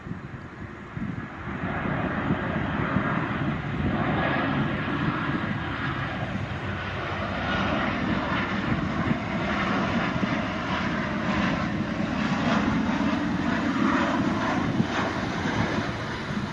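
Boeing 737-800 airliner landing, the noise of its CFM56 jet engines swelling about a second and a half in and staying loud and steady.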